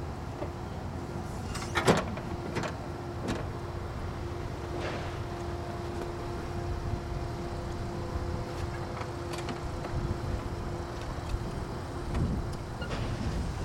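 OM Pimespo E18 electric forklift running, its electric motor giving a steady whine, with a second, higher tone joining about five seconds in. A sharp clunk about two seconds in and a few lighter knocks after it come from the machine being handled.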